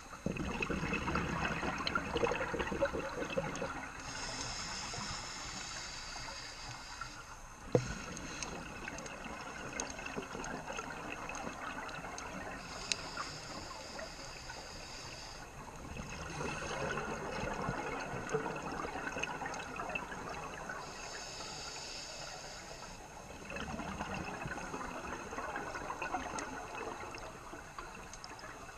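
Scuba diver breathing through a regulator, heard underwater: bubbly bursts of exhaled air alternating with the hiss of each inhale, in slow breaths about eight seconds apart. A single sharp knock just under eight seconds in.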